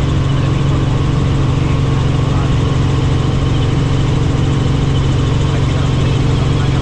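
Helicopter turbine engine and rotors running steadily: a constant drone with a strong low hum and a hiss above it.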